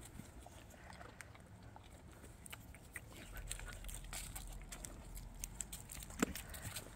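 Dry fallen leaves crackling and rustling under dogs' paws, with one short bark about six seconds in, the loudest sound.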